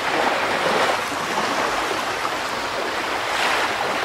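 Steady rushing noise like running water, swelling slightly a little before the end.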